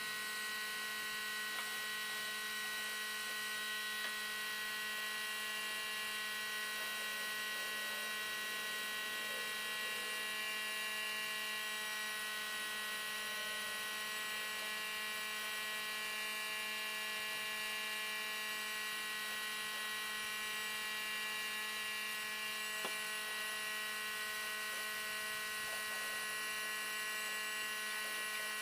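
An electric motor running steadily with a constant whine, with no change in speed or load.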